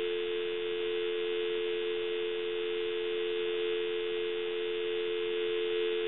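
Telephone dial tone: two steady tones sounding together, clean and free of crackling or popping. The handset's faulty carbon transmitter (T1) has been removed, and the quiet line shows that the transmitter caused the static.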